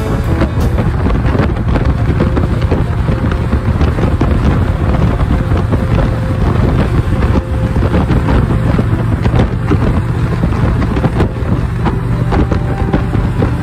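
Wind buffeting the microphone over the engine and road noise of a motorcycle cruising at highway speed, steady throughout.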